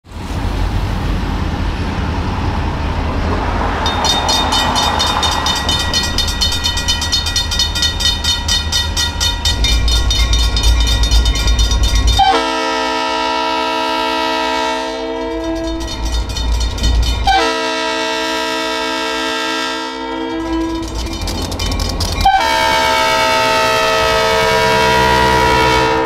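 Diesel locomotive rumbling as it approaches, with a grade-crossing bell ringing rapidly from about four seconds in. The locomotive's air horn then sounds three long chords, starting about halfway through, the last still sounding at the end.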